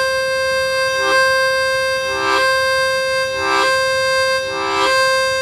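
Harmonica played with tongue blocking: one long blow on hole 4 held unbroken on a single breath. About every second and a quarter, the tongue lifts off holes 2 and 3 and a fuller chord briefly breaks in, five times in all. This gives the choppy 'tek tek tek' feel over a note that never stops.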